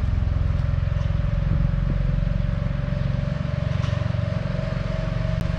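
Machinery running steadily: a low, even drone with a constant thin whine above it.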